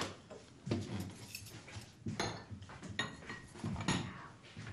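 China cups, saucers and cutlery clinking and knocking on a table as they are handled and set down, in a string of irregular clatters.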